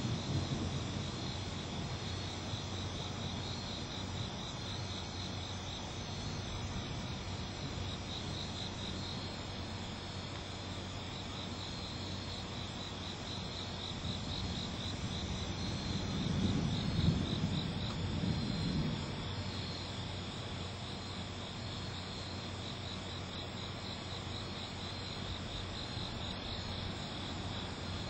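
Night insects chirping in a steady, finely pulsing chorus. A low rumble swells briefly a little past the middle.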